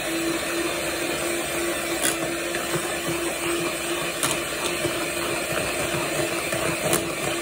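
Electric hand mixer running steadily, its beaters whipping mashed potatoes in a pot: an even motor hum with a whirring swish, and a few sharp clicks.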